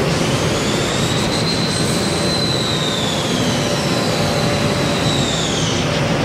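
Haas CNC vertical machining center cutting inside its enclosure, with a steady hiss of coolant spraying against the window. Over it a high spindle whine rises about a second in, holds, and falls away near the end.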